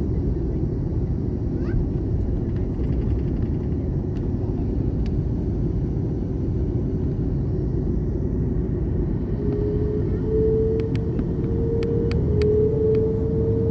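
Airbus A330 cabin noise: a steady low rumble from the jet airliner's engines and airframe. About ten seconds in, a steady tone rises in over it and edges slightly upward in pitch, and a few faint clicks come near the end.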